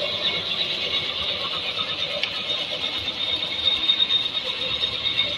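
Drill machine running with a steady high-pitched whine.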